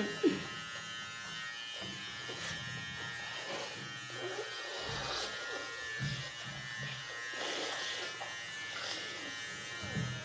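Electric hair clipper running with a steady buzz while cutting hair.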